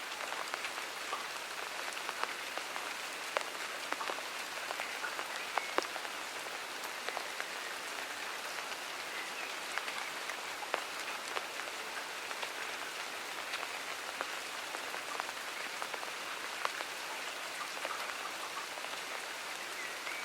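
Steady rain falling in a garden: an even hiss with many separate drops ticking sharply on nearby surfaces.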